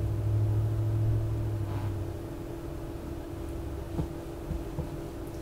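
A steady low hum, with a deeper rumble that fades out about two seconds in and a few faint soft taps.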